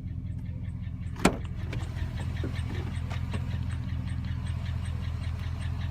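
A 2007 Chevrolet Silverado 1500's engine idling steadily with a regular light ticking, typical of the bad lifters and lost oil pressure the truck is sold with. There is one sharp click about a second in.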